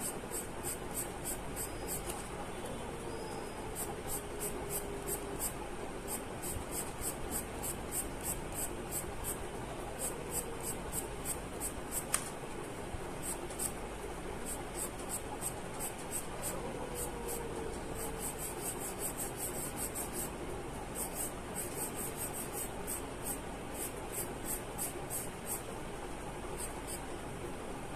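Charcoal pencil scratching on paper in quick short strokes, several a second, in runs with brief pauses, as dark hair is hatched in.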